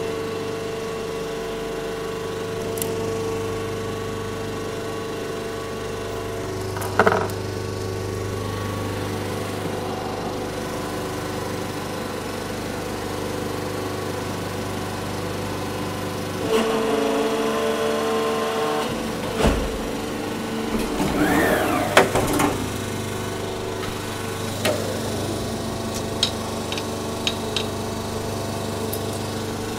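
Arburg injection moulding machine running through a moulding cycle with a steady hum. There is a short burst about a quarter of the way in and a louder stretch just past halfway, then a run of knocks and clicks near the end as the mould stands open and the moulded cable tie is taken out.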